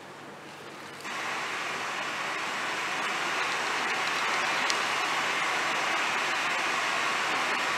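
Steady hiss of static-like white noise from the performance soundtrack, coming on suddenly about a second in.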